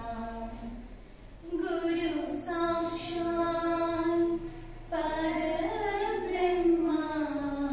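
Women singing a prayer song unaccompanied, in slow phrases of long held notes; a new phrase begins about a second and a half in and another about five seconds in.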